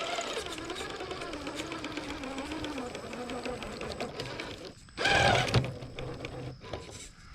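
Traxxas TRX-4 Sport RC crawler's electric motor and geared drivetrain whining as it crawls, the pitch rising and falling with the throttle, with many small ticks. A short, loud burst comes about five seconds in.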